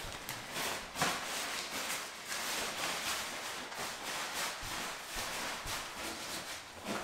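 Nylon tent rainfly rustling and crinkling continuously as it is gathered and rolled up by hand, with many small crackles.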